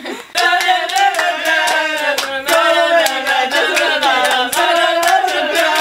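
Pop song with singing and a steady drum beat, starting abruptly about a third of a second in.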